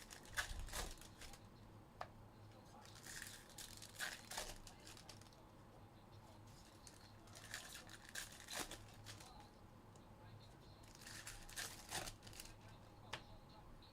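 Trading-card pack wrappers being torn open and crinkled, in short bursts about every three to four seconds, with light clicks of cards being handled in between.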